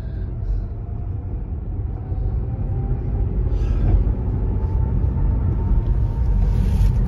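Road and engine rumble inside a moving car's cabin, growing a little louder as the car gathers speed, with a faint whine slowly rising in pitch.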